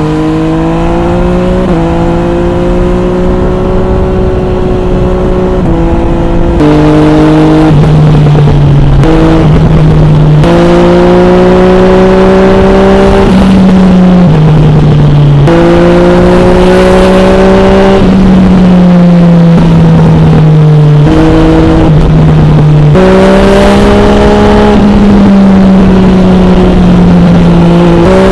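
MV Agusta Brutale 800 RR's three-cylinder engine, through an MV Agusta Corse trio exhaust with the dB killer fitted, heard on board while riding. The engine note holds or slowly climbs in each gear, then changes pitch sharply at about a dozen gear changes. It gets louder about six seconds in.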